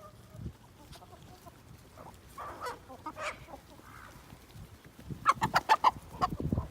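Chickens clucking: a few soft calls, then about five seconds in a fast run of loud, evenly spaced clucks, around eight or ten a second.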